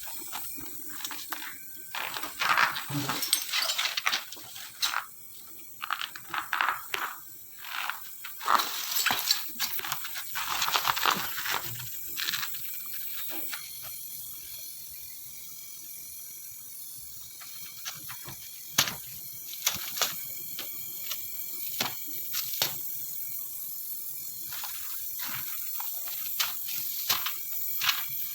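Irregular clinks and taps of metal tools and parts being handled. Bursts of hissing and scraping fill the first dozen seconds, then only scattered single clicks remain.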